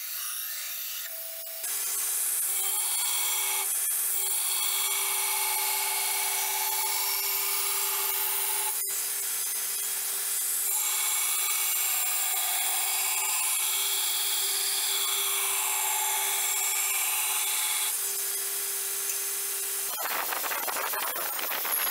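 Belt grinder running with a steady hum while steel is ground against the belt, a continuous rasping hiss: rough-grinding the fullers into a 5160 steel sword blade. The sound starts abruptly about two seconds in and changes near the end.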